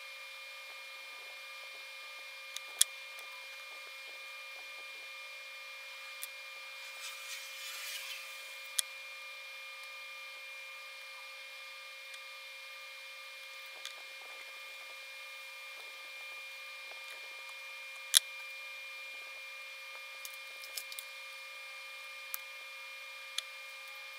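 Quiet handling sounds of a squid bait being rigged by hand, with a few sharp clicks and a short rustle about seven seconds in, over a faint steady high hum.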